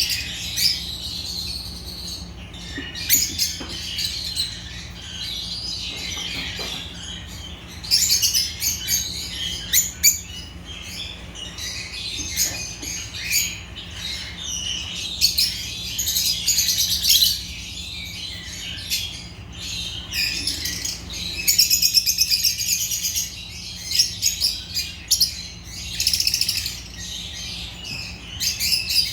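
Agapornis lovebirds chirping continuously, with rapid runs of high, twittering trills that come and go every few seconds, over a faint steady low hum.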